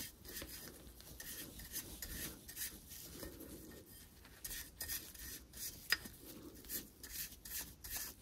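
Nylon-bristle brush scrubbing the threads of a Mercruiser outdrive retainer nut: a faint, irregular run of short scrubbing strokes, working old grease out of the threads.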